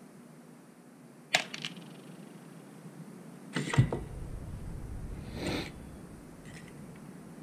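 Handling noises from taking apart a Harley-Davidson Sportster CV carburetor: a sharp metal click about a second in, a louder clatter with a dull thump near the middle as the parts are set down on the cloth-covered bench, then a brief scraping rustle and a few faint ticks.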